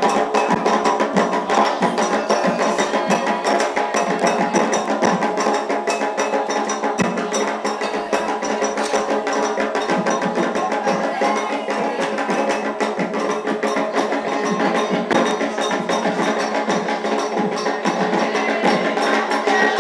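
Candomblé ritual music: rapid, continuous percussion of drums and a sharp struck wood-block-like instrument, played without a break.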